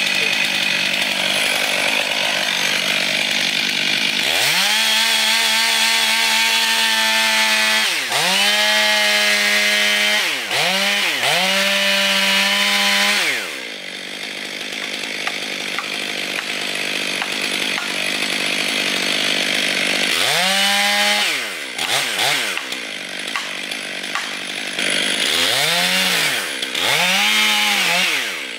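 Two-stroke chainsaw running throughout, revved sharply to full throttle in several bursts of a few seconds each, the pitch falling away after each one.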